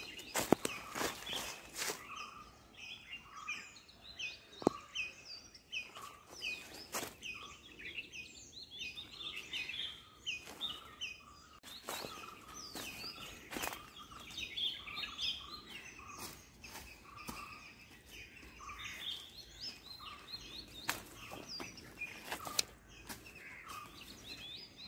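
Small birds chirping in quick runs of short, high notes, over footsteps crunching through dry fallen leaves, with a few sharper crackles and knocks.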